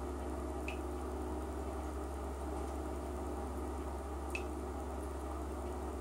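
Bath water with a bath bomb dissolving and fizzing softly, over a steady low hum, with two short drip-like plinks: one just under a second in and one about four and a half seconds in.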